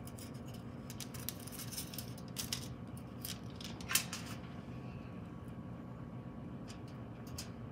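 Light clicks and taps of hands handling bacon-wrapped scallops and pushing them onto skewers, with one sharper click about four seconds in, over a steady low hum.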